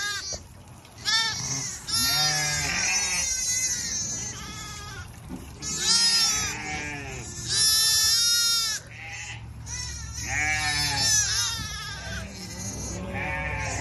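Shetland sheep ewes and lambs bleating, many animals calling over one another, with a long loud call about eight seconds in.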